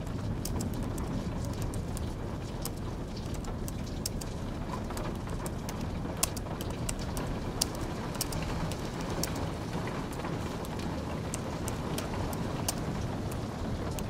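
Typing on a low-profile keyboard: light, irregular keystroke clicks in quick runs, a couple of them sharper, over a steady hiss of rain.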